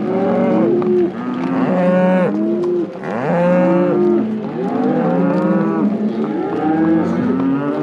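A herd of cattle mooing and bellowing continuously while being driven, many animals calling over one another, each call rising and falling in pitch.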